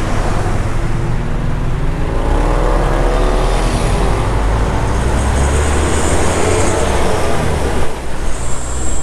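Bus engine pulling hard under road and wind noise, heard from the roof of the bus. Its note climbs for a couple of seconds as the bus accelerates, holds, then drops near the end.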